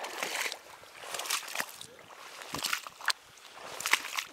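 Wading footsteps in waders sloshing through the shallow water and mud of a boggy marsh, four splashy strides about a second and a quarter apart.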